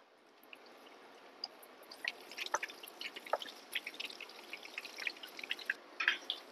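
Small pieces of mascarpone doughnut dough deep-frying in hot oil in a pot. A faint steady sizzle turns into a run of quick crackles and pops from about two seconds in.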